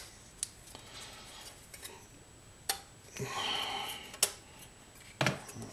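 Thin sheet-steel stand pieces, cut from a computer case, clicking and clinking against each other as they are handled and fitted together by their interlocking tabs. There are a few scattered light clicks and a short metallic scrape about three seconds in.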